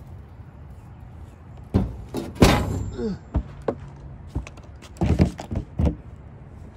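A series of irregular thumps and knocks on a plastic cooler as it is handled with a catfish in it, about seven in all, the loudest about two and a half seconds in and followed by a short creak.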